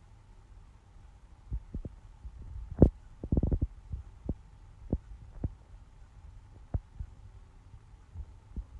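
Irregular taps and clicks of a computer keyboard and mouse as numbers are typed in: about a dozen scattered strikes, the loudest a little under three seconds in and a quick run of them just after, over a faint steady hum.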